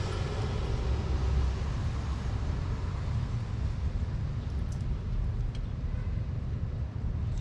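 Steady low rumble with a few faint light clicks about two-thirds of the way through.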